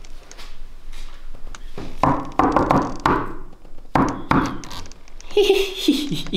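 Two clusters of quick, heavy knocks, about half a dozen strikes a couple of seconds in and three more about a second later, then a brief voice-like sound falling in pitch near the end.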